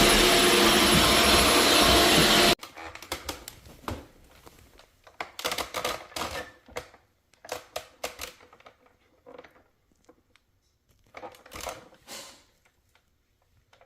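A loud, steady machine noise with a few constant tones cuts off abruptly about two and a half seconds in. Scattered light clicks and knocks follow in short clusters.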